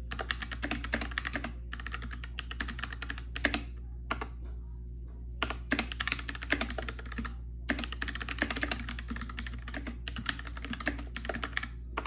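Fast typing on the mechanical keyboard of a FreeWrite Smart Typewriter (3rd generation): rapid key clicks in runs of one to two seconds, broken by short pauses, the longest about four seconds in. A steady low hum lies underneath.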